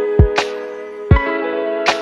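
Background music with a steady beat: sustained guitar-like notes over a kick drum and high percussion hits.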